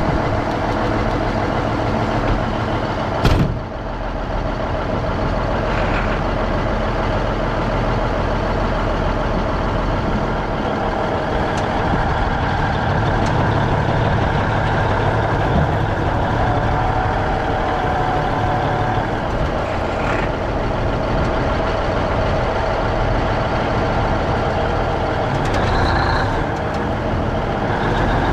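A heavy vehicle engine running steadily, with a short knock about three seconds in.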